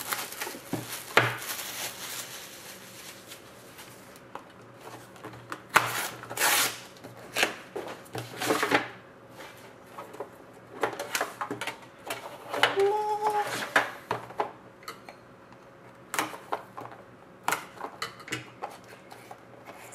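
Unboxing handling noise: plastic shrink-wrap crinkling as it is stripped off a card box, then cardboard and a metal tin being handled, with scattered taps, clinks and rustles.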